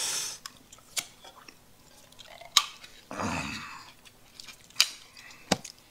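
Small spoon clicking and scraping against a small jar of chili sauce as it is opened and dug into: a handful of sharp separate clicks with soft scraping between them, and a brief muffled low sound about three seconds in.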